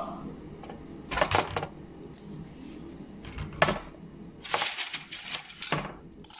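Skewers and food clinking and knocking against a metal tray as meat and vegetables are threaded onto skewers: a pair of sharp clinks about a second in, then more, with a quick cluster past the middle.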